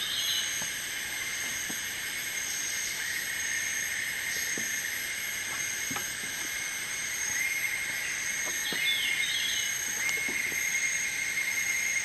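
Rainforest insect chorus: a steady high-pitched drone in several overlapping pitches, with short chirping calls twice, at the start and about nine seconds in.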